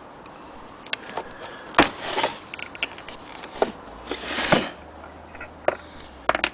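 Handling noise from an antique Bradbury hand-crank sewing machine being tipped up on its wooden base: scattered knocks and clunks of metal and wood, the sharpest about two seconds in, and a scraping rub a little past the middle.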